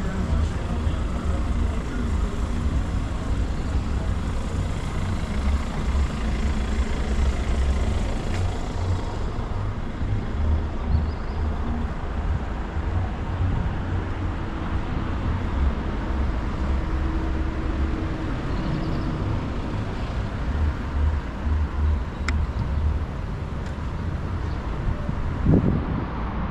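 Road traffic on a city street: a steady low rumble of passing cars.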